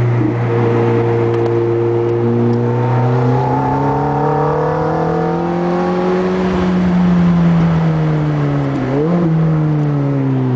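Ferrari F430's V8 engine heard from inside the car, pulling under load: its note climbs slowly for several seconds, then eases back down, with a brief dip and rebound in pitch near the end.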